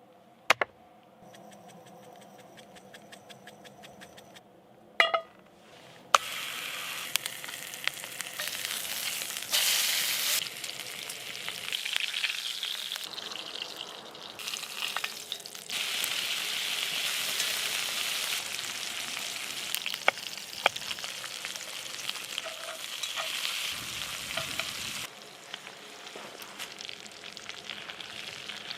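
A few sharp knocks in the first six seconds, then pork belly frying in a cast-iron skillet: a steady sizzle that swells and eases in loudness.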